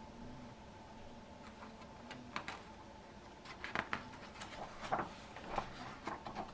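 Hardcover picture book handled and its page turned: after a quiet start, a run of short paper rustles and soft clicks from about two seconds in, thickest near the end as the page goes over.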